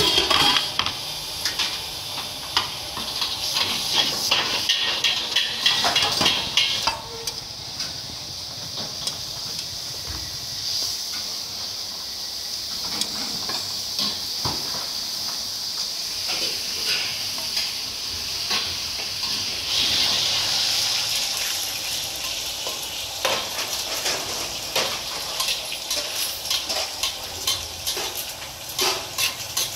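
Noodles frying in a wok over a fierce gas flame: a steady sizzle and hiss, with the metal spatula scraping and clanking in the wok and dishes clinking at irregular moments.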